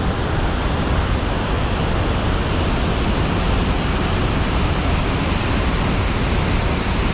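Iguazu Falls: the steady, loud rush of a huge waterfall, with no breaks.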